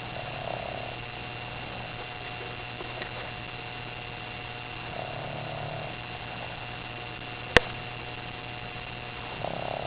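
Sleeping puppy snoring softly: three drawn-out snores about four and a half seconds apart over a steady electrical hum. A single sharp click about three quarters of the way through is the loudest sound.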